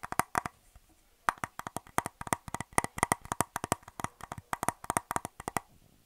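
Fingers tapping quickly on the embossed plastic back of a hand mirror: fast runs of sharp clicks, with a short pause about half a second in, stopping near the end.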